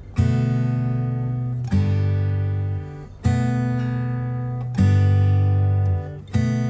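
Background music of strummed guitar chords, a new chord about every second and a half, each ringing out and fading before the next.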